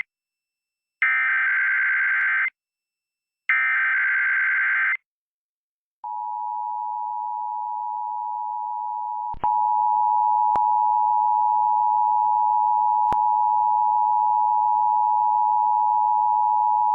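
Emergency Alert System test on AM radio. It opens with the last two of the three buzzing data bursts of the EAS header, each about a second and a half long. About six seconds in, the steady two-tone EAS attention signal comes in faintly, jumps louder about three seconds later and holds until the spoken test message begins.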